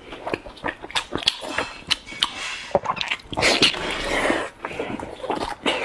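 Close-miked wet eating sounds: lip smacks, squelching bites and chewing of a saucy meat roll, with many short clicks. About three and a half seconds in come breathy stretches of air drawn in and blown out over food that is too hot.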